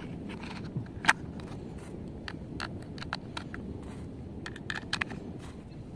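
Plastic toy train parts being handled and screwed together, giving scattered small clicks and knocks, with one louder click about a second in and a quick run of clicks near the end.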